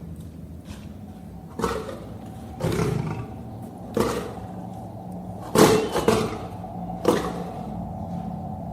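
Lion giving a series of short, loud roars about a second apart, the loudest a little past halfway through.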